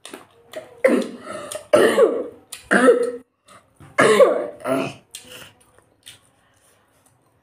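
A woman coughing and clearing her throat in a run of about five short, loud bursts over a few seconds, then only faint clicks.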